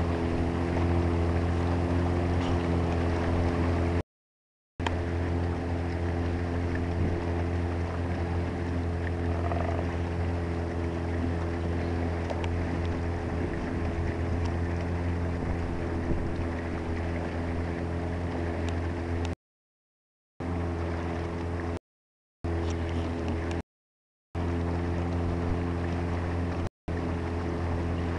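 Small boat's motor running at a steady speed, a low, even drone. The sound cuts out completely for brief moments several times: about four seconds in, and a few times in the last third.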